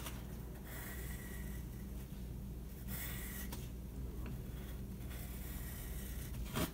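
Pencil scratching on sketchbook paper in short runs of scribbling strokes, over a steady low hum.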